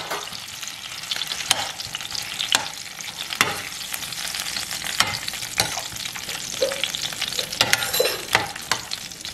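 Tomatoes, tomatillos, onion and a green chile sizzling in oil in a stainless steel skillet as they are browned, a steady hiss. A metal spoon turns the pieces, clinking and scraping against the pan repeatedly.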